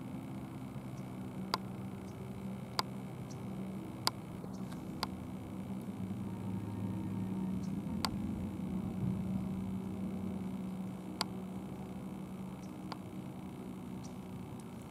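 Distant Boeing 747-400 freighter's jet engines giving a steady low rumble that swells slightly midway as the jet passes. Several sharp, short clicks stand out over it.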